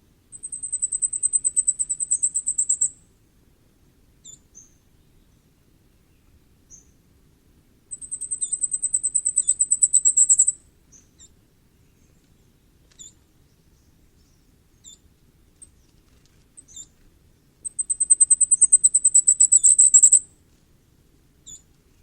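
Common firecrest singing: three songs about eight seconds apart, each a very high-pitched, rapid series of thin notes lasting about two and a half seconds and growing louder toward the end, with short, soft single call notes in between.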